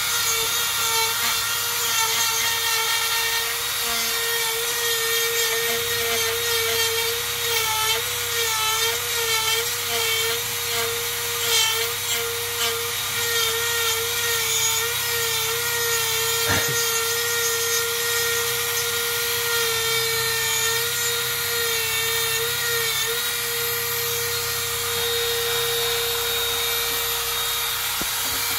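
Dremel rotary tool driving a burr through a flex shaft, grinding into wood with a steady high motor whine whose pitch wavers and dips as the burr bites. A single sharp click about two-thirds of the way through.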